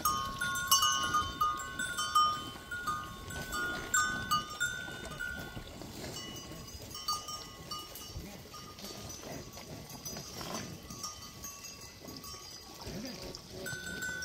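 A small brass bell on a cow's collar clanking irregularly as the cow drinks at a trough and moves its head. It rings often through the first six seconds, then only now and then.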